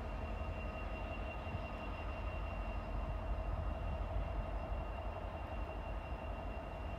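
Vossloh Euro 4000 diesel-electric locomotive's EMD 710 two-stroke diesel engine running as the locomotive creeps slowly along the track: a steady low rumble with a constant high whine over it.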